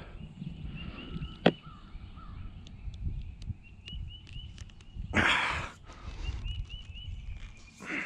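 A songbird repeating short, high chirps at one pitch over a low background rumble. A single sharp click comes about one and a half seconds in, and a half-second rasping noise, the loudest sound, about five seconds in.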